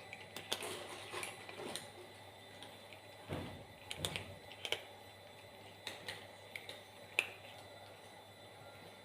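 Faint scattered clicks and light taps, with a soft low thump a little over three seconds in.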